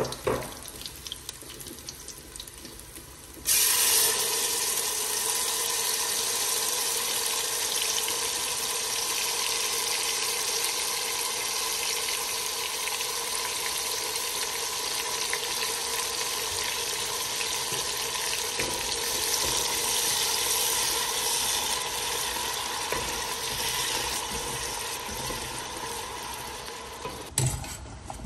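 Tomato liquid poured into hot oil and fried onions in a stainless steel pot, hissing and sizzling steadily. The hiss starts suddenly about three and a half seconds in, after a quieter frying sizzle, and falls away shortly before the end.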